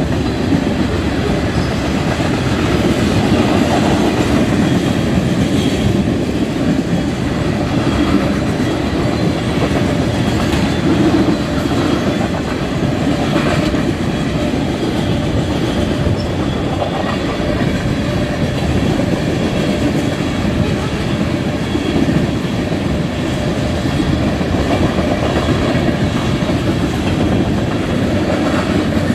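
A long string of coal hopper cars rolling past at steady speed: a continuous rumble of steel wheels on rail with wheel clatter.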